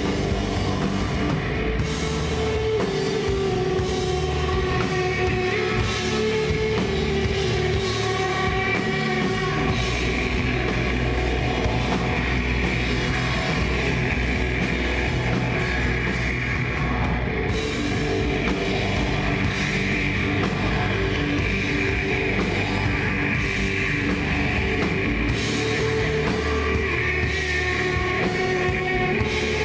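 Rock band playing live: distorted electric guitars, electric bass and drum kit in a steady instrumental passage with long sustained guitar notes and no vocals.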